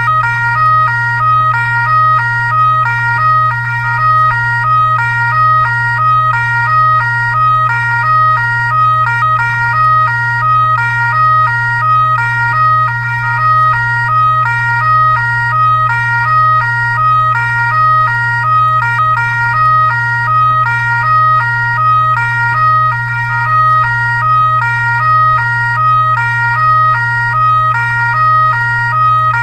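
Fire truck siren switching quickly back and forth between two pitches, over a steady low hum.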